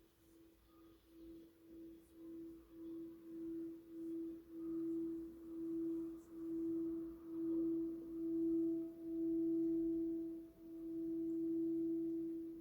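Himalayan singing bowl rubbed around its rim with a mallet: one sustained ringing tone that swells and dips in a regular wavering pulse, growing from faint to full. A fainter, higher tone joins above it about halfway through.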